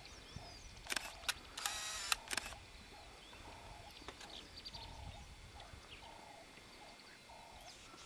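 Camera shutters clicking: single clicks about a second in, then a rapid burst of shutter clicks lasting about half a second, with fainter clicks a couple of seconds later.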